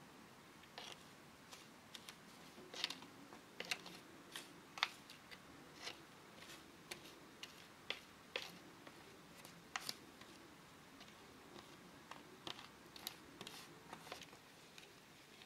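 A small plastic spoon clicking and scraping against a thin plastic tray as powdered pancake mix is stirred with water into a batter. The clicks are soft and irregular, with a few louder taps between about three and five seconds in.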